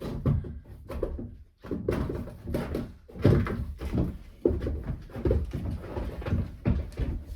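Irregular dull thumps and knocks, about one or two a second, of someone moving about in a trail shelter and handling gear.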